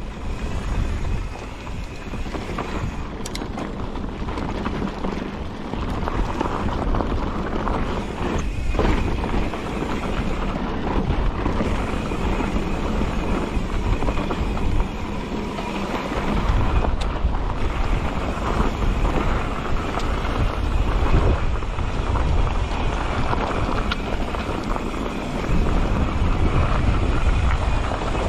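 Wind buffeting the microphone of a camera on a moving mountain bike, a heavy uneven rumble, mixed with tyre and trail noise over rock and gravel. A few sharp knocks, about 3, 9 and 17 seconds in, are the bike jolting over the rough trail.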